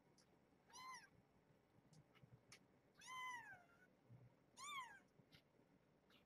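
Newborn kittens, two days old, mewing: three short high cries, each rising and then falling in pitch, the middle one about three seconds in the longest.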